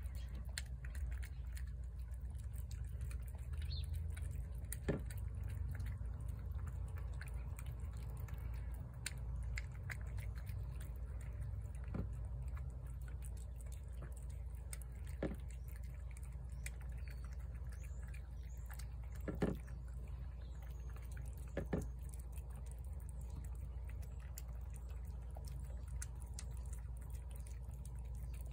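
Cats eating shredded wet food from plates: small wet chewing and smacking clicks throughout, with a few louder clicks, over a steady low rumble.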